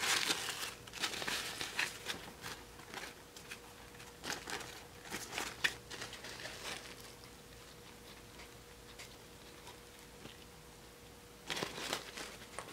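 Rustling and crinkling as hands handle an Ever After High doll and smooth its satin and glittery gown, in irregular bursts for the first several seconds, then quiet, then another short burst near the end.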